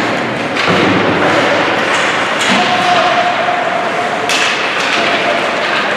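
Youth ice hockey play echoing in an arena: thuds and knocks of puck, sticks and boards over a steady din, with sharp hits about half a second in and again past four seconds. A long steady tone runs through the middle.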